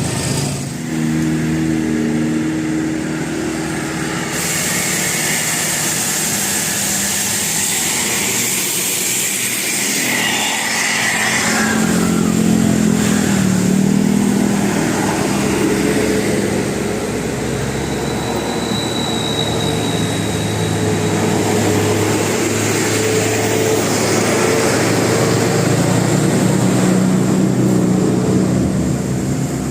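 Buses and other road traffic passing, with heavy engine noise and a steady engine hum throughout.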